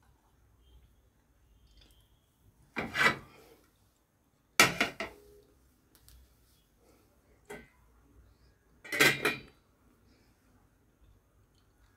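Plates and cookware clattering as they are handled: three short bouts of knocks and scrapes, about three, four and a half and nine seconds in, with a fainter knock in between.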